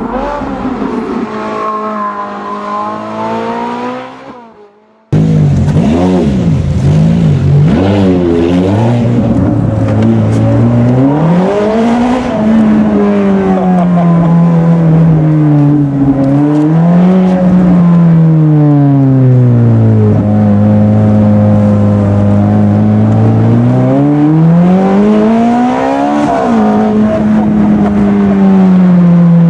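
Ferrari F430 Spider's 4.3-litre V8 through a full Capristo exhaust, heard from inside the cabin. A short intro sound fades out about four seconds in; then the engine comes in loud with quick throttle blips. After that the revs climb and fall again and again as the car accelerates and lifts off, with a steadier low stretch in the middle.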